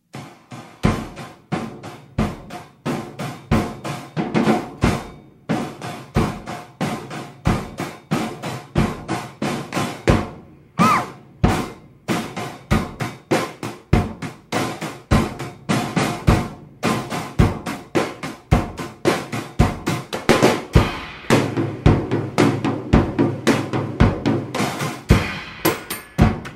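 Drumming on a drum kit: a fast, steady run of snare and bass-drum hits, about three a second, as part of a music soundtrack.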